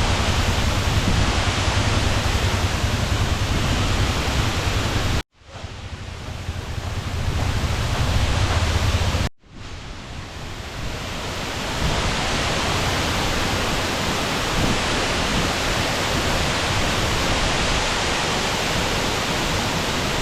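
Waterfall rushing, a steady loud roar of falling water. It cuts out sharply about five seconds in and again about nine seconds in, fading back up each time.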